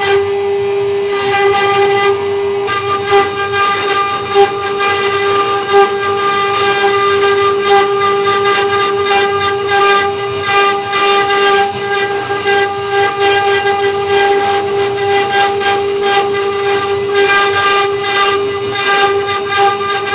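CNC router spindle running with a steady high whine while its bit mills a pocket into a wooden block, with an irregular rasp from the cutting.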